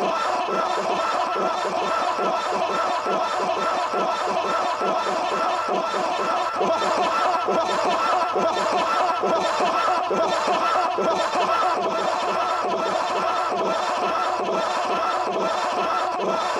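Creepy sound-design ambience: a dense, unbroken bed of many overlapping snickering, chuckling voice-like sounds that keeps going without a pause.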